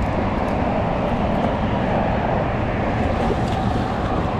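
Steady wind noise buffeting the microphone, a dense low rumble with no let-up.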